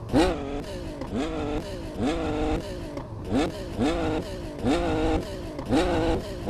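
Motorcycle engine revved in quick repeated throttle blips, about three every two seconds, each a short rising rev.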